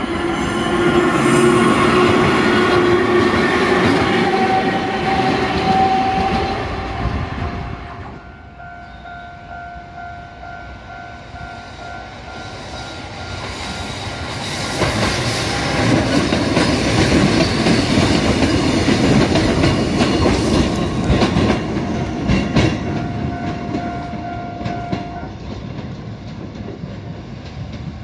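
Two passes of Kotoden's vintage retro electric cars at close range, with wheels clacking over the rail joints; the first fades out about eight seconds in and the second, louder, builds from about fifteen seconds. Through the second part a level-crossing warning bell rings with a steady tone.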